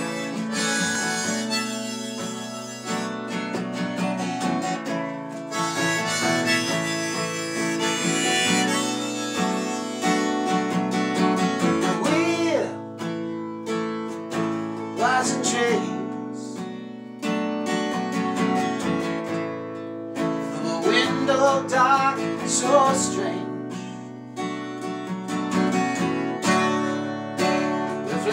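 Harmonica played over a strummed acoustic guitar, the harmonica holding long notes and bending some of them.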